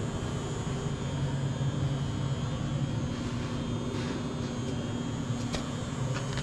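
Steady mechanical drone with a strong low hum and a few steady higher tones, and a couple of faint clicks about two-thirds of the way through.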